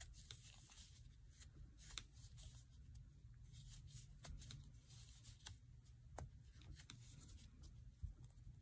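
Faint rustling of thick tape yarn pulled through single crochet stitches by a metal 7 mm crochet hook, with scattered light clicks, the sharpest about two seconds in and near the end.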